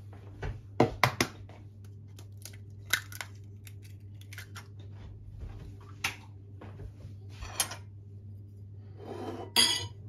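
An egg cracked against the rim of a ceramic bowl: a cluster of sharp taps about a second in, then a few lighter knocks. Near the end a metal spoon clinks and scrapes in the bowl.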